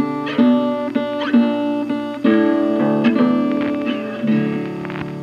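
Background music: an acoustic guitar picking notes and chords, a new note about every half second, ending on a chord that rings out and fades near the end.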